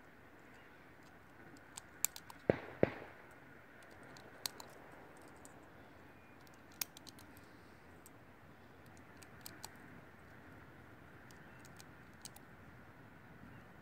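Scattered distant gunshots at irregular intervals, mostly faint sharp cracks. The loudest are two shots close together about two and a half seconds in, each with a short echo.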